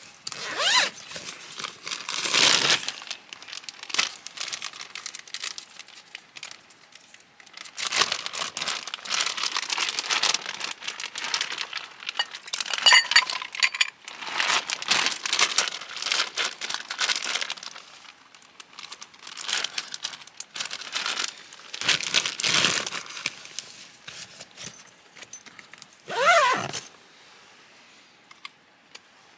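Bursts of crinkling and rustling, like bags or fabric being handled, on and off. There is a short squeak near the end.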